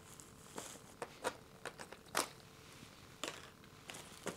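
Syngonium albo vines and leaves rustling and crackling against a moss pole as they are pulled loose by hand, in scattered short crinkles, about one or two a second.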